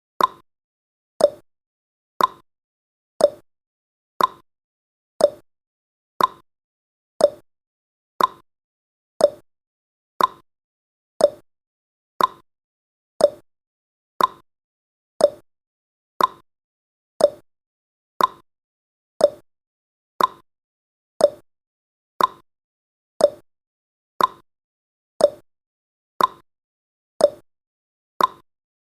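Countdown timer's tick sound effect: a short, sharp tick once every second, evenly spaced and identical each time.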